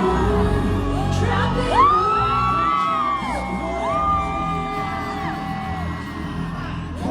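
Loud pop music with a heavy bass beat playing through a venue's sound system, while fans scream and whoop over it in long, high, rising-and-falling cries.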